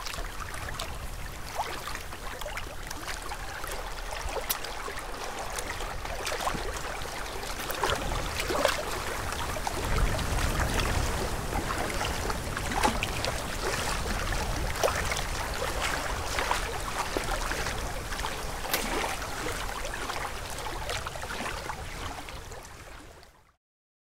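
Small waves lapping and splashing among the boulders of a rocky lake shore, with gusts of wind on the microphone, strongest about halfway through. The sound fades out near the end.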